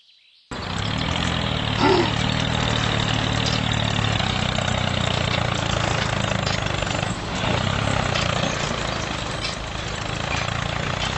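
Motor of a small DIY model tractor starting abruptly about half a second in, then running steadily as the tractor drives through sand.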